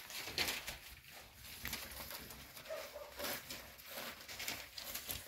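Cocker spaniel puppies scrabbling and rustling over paper lining the floor, with a brief soft whimper about two and a half seconds in.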